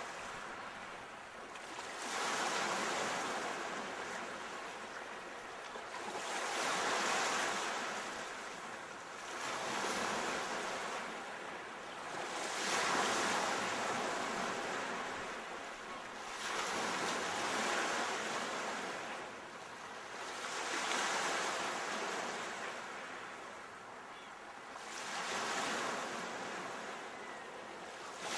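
Sea waves washing in, the surf rising and falling in a swell about every four seconds.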